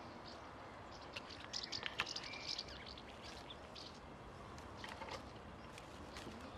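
Short clicks and scrapes of wire mesh being handled and fastened by gloved hands over reed matting, clustered from about a second in to two and a half seconds and again around five seconds, with birds chirping in the background.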